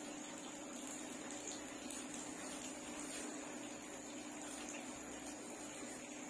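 Steady hiss of room tone with a low, even hum underneath; no distinct strokes or events stand out.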